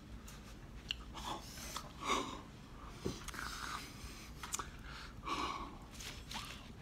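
A person's breathing and mouth noises close to the microphone, in short irregular bursts.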